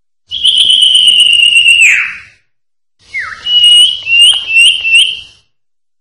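Common iora (cipoh) singing: one long high whistle held for about a second and a half, ending in a downward slur, then after a pause a short falling note and four quick clipped notes, each with an upward flick.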